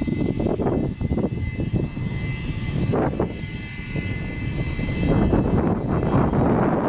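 Wind buffeting the microphone in uneven gusts, giving a loud low rumble. A faint steady high whine sits behind it through the first half.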